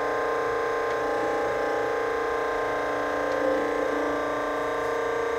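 TOS 8x24 hydraulic surface grinder running under power, its wheel spindle and hydraulic pump giving a steady hum with several fixed tones while the hydraulic table traverses and the cross slide steps.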